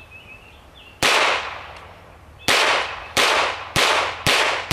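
Ruger Mark I .22 Long Rifle semi-automatic pistol firing five shots: one about a second in, then four in quick succession a little over half a second apart, each followed by a short trailing echo.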